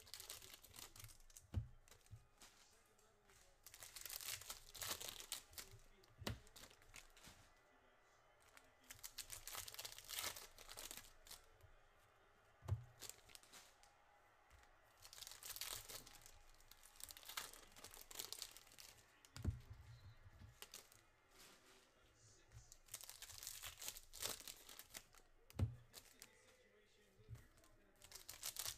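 Foil packs of 2023 Certified NFL trading cards being torn open, their wrappers crinkling in several separate bursts, with a few short, dull knocks in between.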